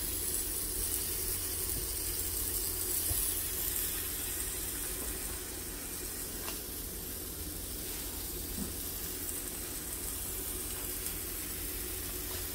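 Lard sizzling under thick masa picaditas topped with salsa on a hot comal, a steady hiss as the fat begins to bubble.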